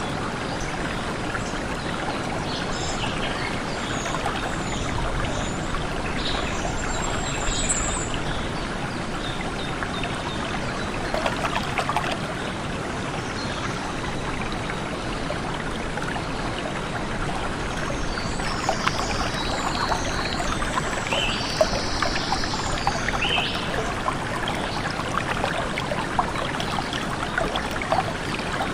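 A stream of water running and trickling steadily, with birds calling in short high notes now and then, mostly a few seconds in and again past the middle.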